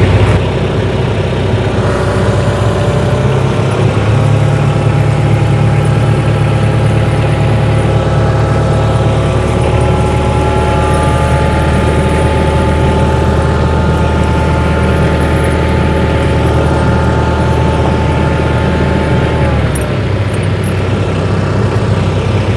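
Tractor engine running steadily, its note easing about twenty seconds in.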